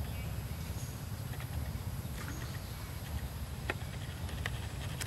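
Outdoor ambience: a steady low rumble with a thin, high, steady tone above it, and a couple of faint soft ticks in the second half.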